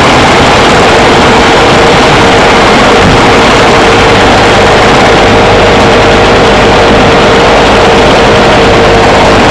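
Many machine guns on a firing line shooting at once, blending into one continuous, very loud barrage with no breaks, pushing the recording to its limit.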